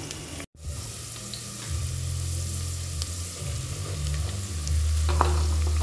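Chopped peppers, onions and spices sizzling in a steel pot on a gas stove, with a low steady hum underneath from about two seconds in. The sound cuts out for a moment about half a second in.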